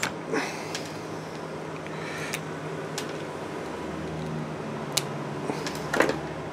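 A few sharp clicks and taps from hands handling a small plastic power-supply connector and small tools on a workbench, over a steady low hum.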